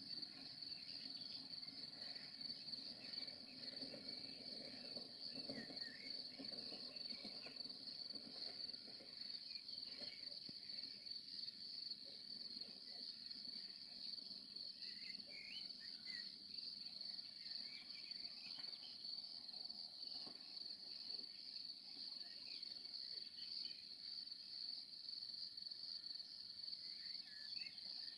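Crickets chirping in a faint, steady, high-pitched trill that never lets up.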